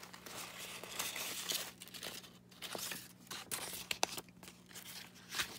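Sheets of paper and card rustling and sliding against each other as they are handled and stacked, in irregular crackly bursts with a few sharp taps.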